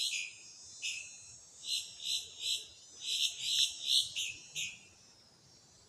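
Boat-tailed grackle giving a series of short, harsh call notes, about three a second in two runs, stopping about a second before the end.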